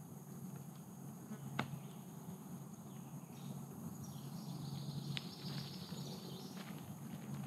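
An insect buzzing steadily and low near the microphone, over a high, steady trill of other insects, with two sharp clicks.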